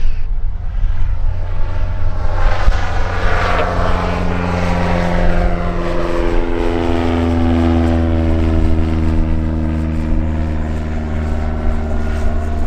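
Cessna F172M Skyhawk's four-cylinder Lycoming engine and propeller droning as the plane climbs out past after a touch-and-go. The pitch drops as it goes by, about two to five seconds in, then holds steady as it climbs away.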